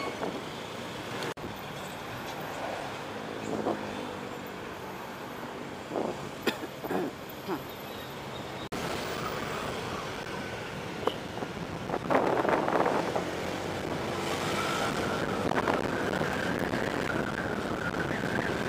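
Road traffic noise heard from a moving scooter: a steady rush of engines, tyres and wind. It jumps abruptly twice where clips are joined and swells louder about twelve seconds in.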